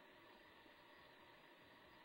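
Faint, steady static-like hiss with no distinct events, most likely electronic noise on the webcam's audio.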